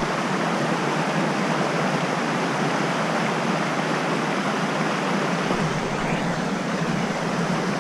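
Mountain trout stream rushing steadily over rocks, a continuous even hiss of moving water.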